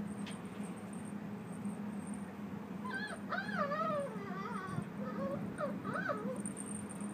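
Young white Korean dog whining in high, wavering whimpers for about three seconds, starting about three seconds in, frustrated at a ball stuck out of reach under a container.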